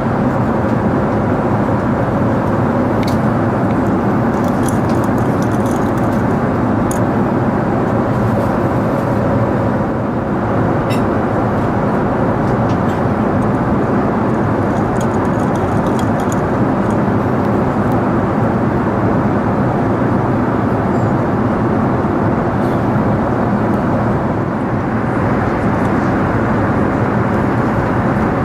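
Steady in-flight cabin noise of an Airbus A380, a constant roar of engines and airflow, with a few faint light clicks now and then.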